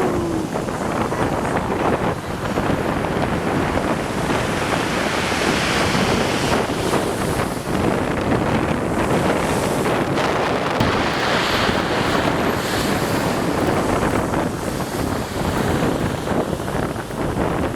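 Strong wind buffeting the microphone, rising and falling in gusts, over the wash of waves breaking on the shore.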